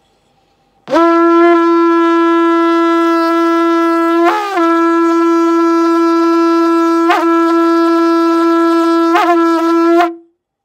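A large curved horn shofar blown in one long, steady, loud blast of about nine seconds, with a brief wobble in pitch a few seconds in and two small breaks near the end.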